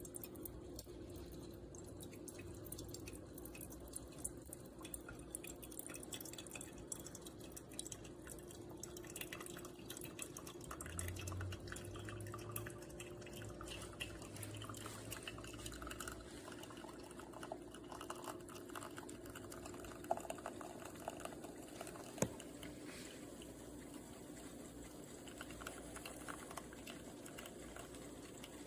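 Small steam espresso machine brewing, faint dripping and trickling of coffee into a cup with many small irregular ticks over a steady low hum.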